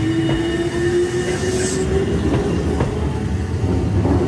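Eizan Electric Railway 'Hiei' electric railcar pulling away, its motor whine rising steadily in pitch for about two seconds as it accelerates, over the low rumble of its wheels on the rails. A short hiss comes about a second and a half in.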